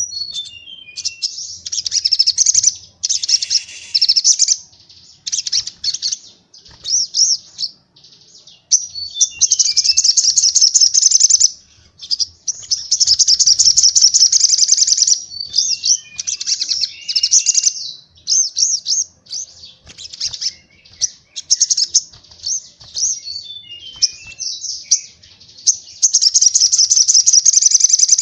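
White-eye (pleci) song in rapid-fire 'tembakan' bursts: loud, fast, high trills lasting one to three seconds, repeated with short pauses, some bouts opening with a few short descending chirps.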